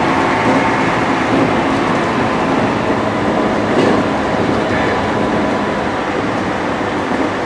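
Electric commuter train running at speed, heard from inside the front car behind the driver's cab: a steady rumble of wheels on rails with the car's running noise.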